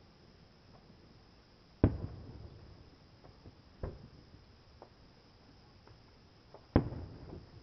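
Distant aerial firework shells bursting: three booms, about two, four and seven seconds in, each trailing off in a rolling echo, the first and last the loudest.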